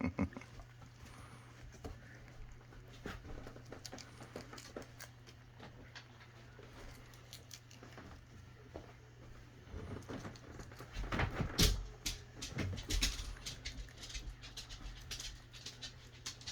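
Pet rabbit crunching on snacks: a steady run of small crisp clicks, with a louder patch of crunching and low bumps about eleven to thirteen seconds in.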